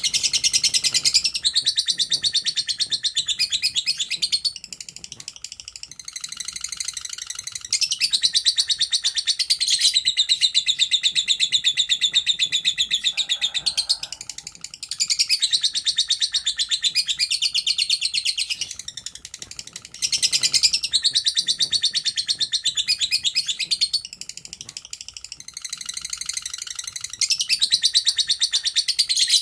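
A lovebird giving its long 'ngekek' chatter: long runs of rapid, high-pitched trilling chirps, each run lasting several seconds, with a few brief softer pauses between them.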